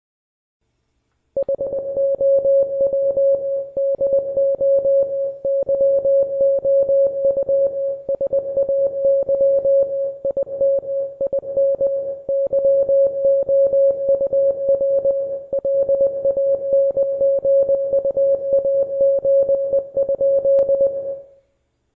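International Morse code sent as a single steady tone keyed rapidly on and off, spelling out English text. It starts about a second and a half in and stops just before the end, with short gaps between words.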